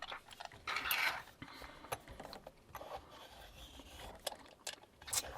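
Small metal clicks and scrapes from a padlock and lock-picking tools being handled, with a longer scraping rustle about a second in and a few sharp clicks near the end.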